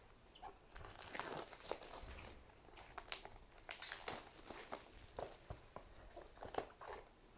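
Packaging of a trading-card booster box being handled and opened: irregular crinkling and tearing.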